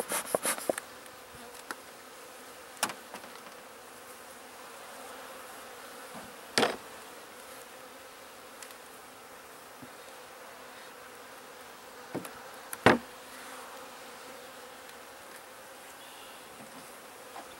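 Honeybees buzzing steadily around an open hive, broken by a few sharp wooden knocks, the loudest about two-thirds through as the wooden inner cover is set down on the hive box.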